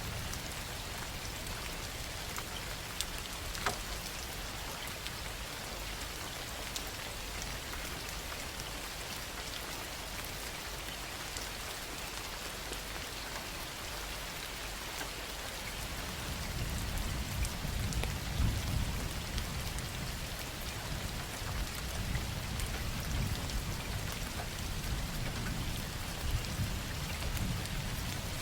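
Heavy rain pouring steadily, with scattered sharp drop ticks. From about halfway through, a long low rumble of thunder swells underneath and carries on to the end.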